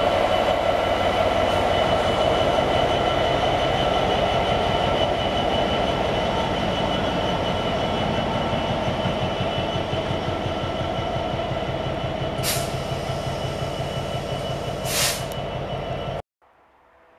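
British Rail Class 66 diesel locomotive passing close by with a freight train: its EMD two-stroke V12 engine runs steadily, with a fast low pulse under the wheels rolling on the rails. Two short, sharp noises break in near the end, and the sound then cuts off suddenly.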